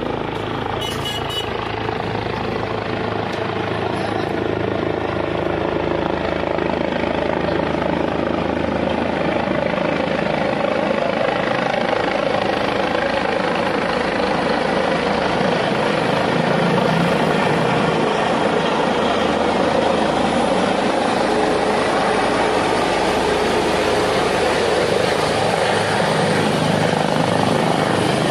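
Helicopter coming in to land, its rotor and turbine noise steady and growing louder over the first half as it approaches and descends.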